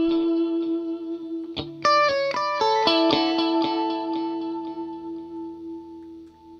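Electric guitar (a Fender Stratocaster) played through a Boss CS-3 Compression Sustainer and delay into a Vox AC30 amp. A held note, then a few picked notes about two seconds in, and a long compressed note that sustains and slowly fades.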